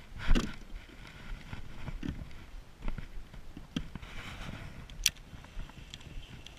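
Scattered knocks and clicks of handling on a plastic kayak as the camera is moved about, the loudest a thump just after the start and a sharp click about five seconds in.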